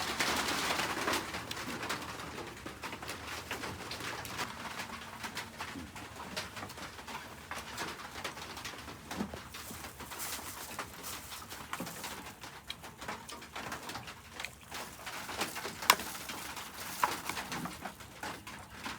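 Doves cooing in the background, with scattered clicks and knocks and one sharp, louder click about 16 seconds in.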